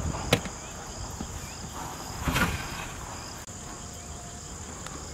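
Crickets trilling steadily, with a sharp clink of the pot's metal lid being handled about a third of a second in and a brief scraping rustle just after two seconds.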